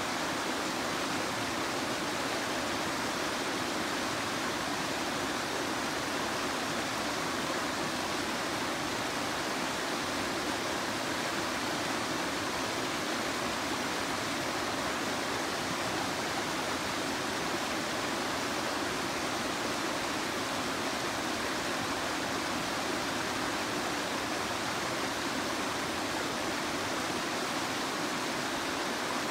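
Steady rushing of river water pouring over an inflatable rubber weir into white water below.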